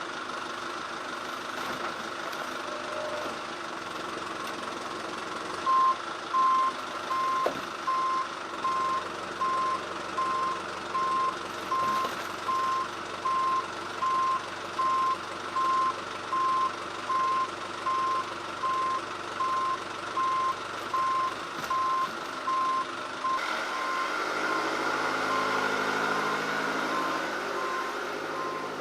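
A vehicle's reversing alarm beeping steadily, a little more than once a second, over its running engine, starting about six seconds in. Near the end the engine revs up, louder, while the beeping goes on.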